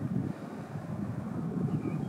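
Steady low rumbling noise, like wind buffeting a microphone or a distant engine, with no clear events.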